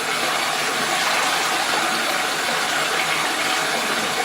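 Tap water running steadily into a bathtub, a constant rushing splash with no breaks.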